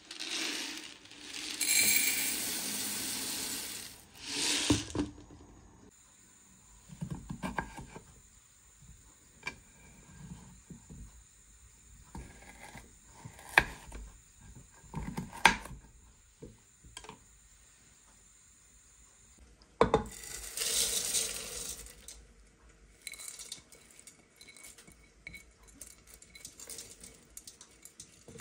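Dry lentils poured into a ceramic bowl with a rushing rattle for a few seconds. A knife then chops carrots on a wooden board in scattered knocks, two of them sharp and loud. Later comes another rush of pattering as lentils are tipped from the bowl into a pot.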